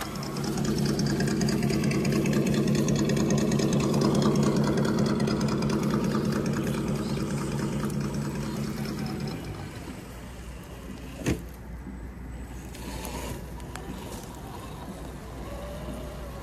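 Electric motor and gear drivetrain of a radio-controlled scale crawler truck whining steadily, cutting out about nine seconds in. A single sharp knock follows a couple of seconds later.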